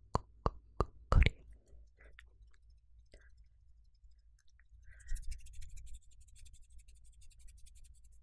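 Close-miked ASMR mouth clicks, a few sharp ones in the first second or so, then a quiet, dense scratchy crackling from about five seconds in.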